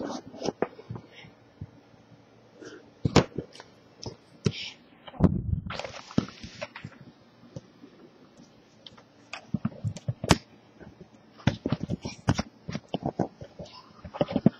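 Handling noise: scattered knocks and clicks with rustling as the camera is moved about, and a dull thud followed by about a second of hissing around six seconds in.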